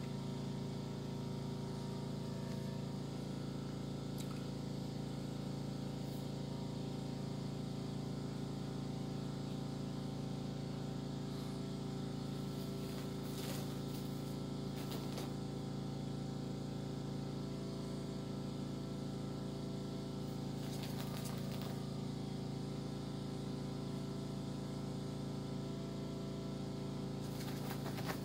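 A steady low mechanical hum that stays unchanged throughout, with a few faint clicks and rustles around the middle and again near the end.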